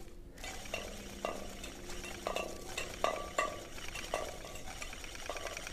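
Tin can on a wire bail being lowered on string down a drilled well's metal casing, knocking against the pipe wall as it descends: a string of irregular light metallic clinks, each ringing briefly in the casing.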